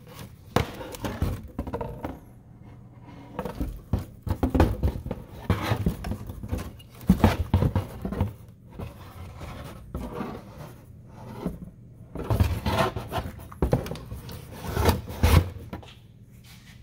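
A metal suspension control arm being handled in a cardboard box: uneven knocks, scrapes and rubbing of the part against the cardboard as it is lifted, turned over and set back down.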